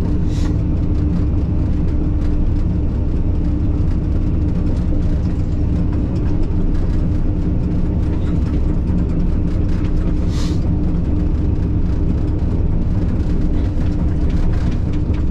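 Takeuchi excavator's diesel engine running steadily, heard from inside the cab as a dense, even hum. A brief hiss comes about half a second in and again about ten seconds in.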